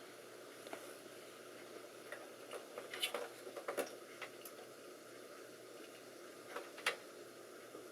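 Light clicks and clatter of hands handling cables and connectors inside a desktop computer case: a cluster of clicks about three seconds in and two sharper clicks near the end, over a faint steady hiss.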